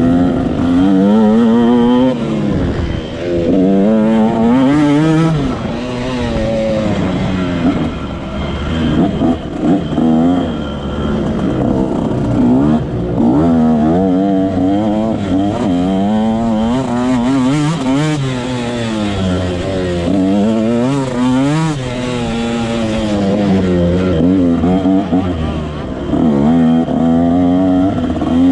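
Motocross dirt bike engine heard from on board, revving hard and easing off again and again as the rider works the throttle and gears, its pitch climbing and dropping every second or two.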